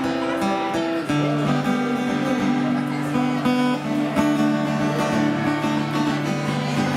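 Acoustic guitar music with strummed chords and long held low notes.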